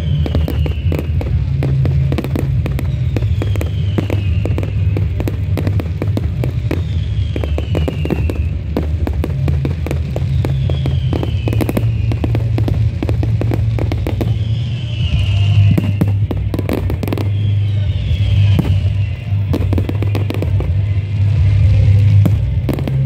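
Aerial fireworks bursting in quick succession, a dense run of bangs and crackles, with a falling whistle about every three to four seconds. Steady music with a heavy bass plays underneath.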